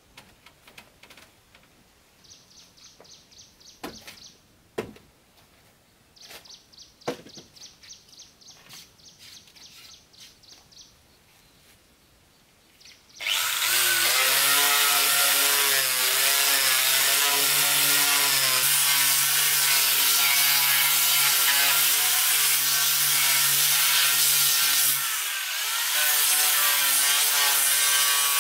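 A handheld electric sander starts about halfway through and runs steadily on a wooden table top, sanding off the old finish before repainting, with a brief dip near the end. Before it starts there are only quiet knocks and two short runs of rapid, light scraping.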